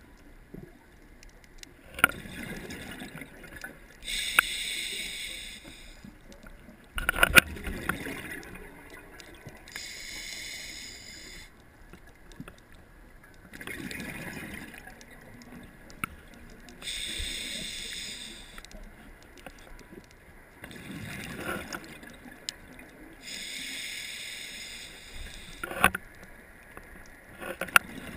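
Scuba diver breathing through a regulator underwater: a hiss on each inhale alternating with a gurgling rush of exhaled bubbles, about four breaths, with a few sharp clicks.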